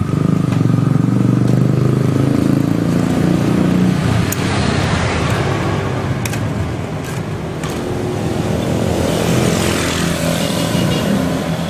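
An engine running steadily, a little louder in the first few seconds, with a few light clicks.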